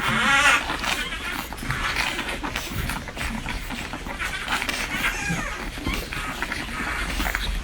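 Newborn French Bulldog puppies nursing: a wavering high squeal right at the start, then smacking suckling noises with small squeaks.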